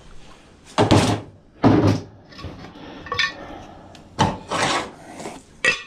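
Handling noise in the shed: a few short, loud knocks and scrapes about a second in, near two seconds, and again just past four seconds.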